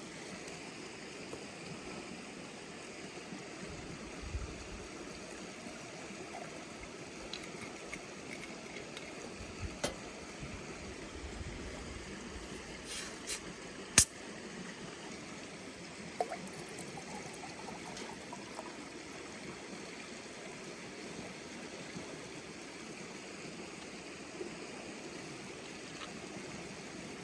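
River running steadily over its bed, with a few short sharp clicks, the loudest about halfway through.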